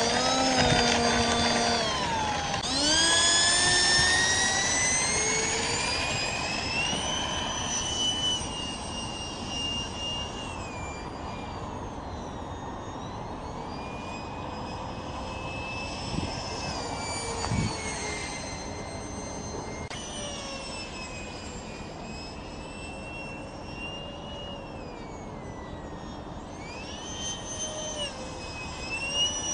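Electric ducted fan of a radio-controlled F-5E model jet, a 64 mm fan, whining as it flies. Its pitch climbs steeply about three seconds in as the throttle is opened, then falls and rises again several times with the throttle.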